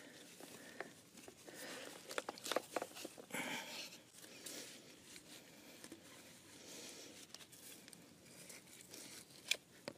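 Faint rustling, scraping and scattered small clicks of gloved hands wiping dirt off a PVC pipe end and fitting, with a sharper click near the end.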